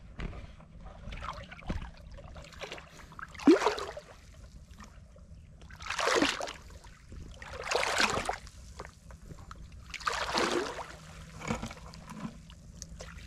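Water sloshing and swirling around a person's legs as she wades through thigh-deep water, with several louder surges a couple of seconds apart as she steps and bends.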